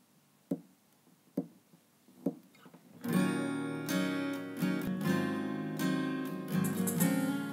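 Three sharp taps about a second apart lead in, then acoustic guitar strumming chords starts about three seconds in and carries on.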